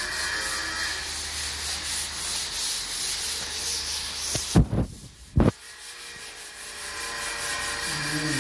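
A wall being sanded by hand with a sanding pad: steady rasping strokes of abrasive on the wall surface. A little past halfway the rubbing drops away and two short, dull thumps sound about a second apart, the loudest sounds here, before the sanding comes back.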